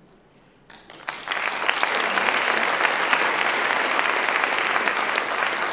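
Audience applause: a few scattered claps about a second in, quickly swelling into steady, dense clapping.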